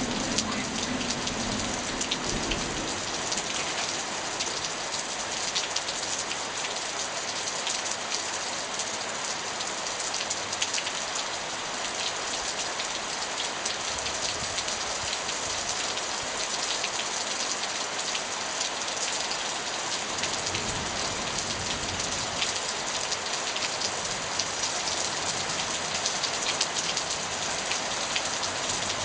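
Heavy rain falling steadily in a thunderstorm, a dense even hiss with many individual drops striking close by.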